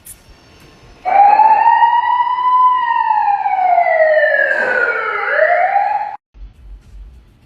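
A loud, siren-like wailing tone from a Tesla's modified horn, starting about a second in, sliding slowly down in pitch and back up again, then cutting off suddenly after about five seconds.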